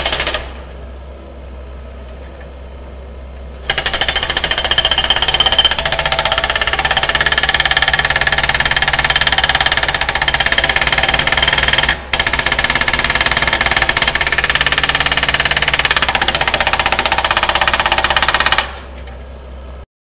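Hydraulic rock breaker on a Komatsu PC78US-6 excavator hammering rock in rapid blows, over the excavator's diesel engine. The hammering pauses for about three seconds at the start, leaving only the engine running, breaks off for an instant about twelve seconds in, and stops near the end.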